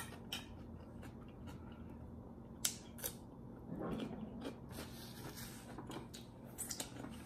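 Water cooler glugging, pretty loud: air bubbling up into the inverted bottle as the water level drops, in a burst about four seconds in. A few sharp clicks of eating come before it.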